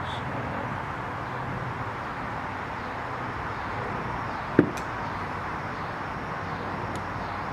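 Steady background hiss with one sharp click about four and a half seconds in, from hand work on a sewing machine's needle bar and set screw, and a faint tick or two after it.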